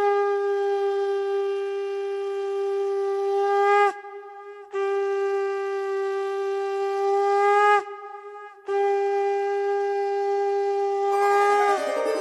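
Conch shell (shankha) blown in three long blasts, each a single held note that sags slightly in pitch as it dies away. A flute-like melody begins near the end.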